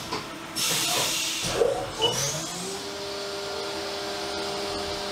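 Haas CNC vertical machining centre starting a cut: a burst of hissing spray as the flood coolant comes on, then the spindle spins up with a rising whine that settles into a steady tone over the coolant spray.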